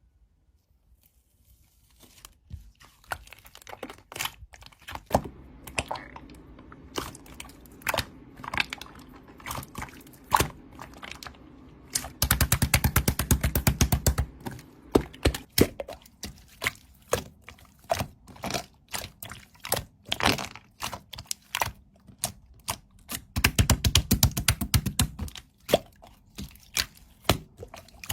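A run of irregular taps and clicks, with two stretches of fast tapping at about ten a second.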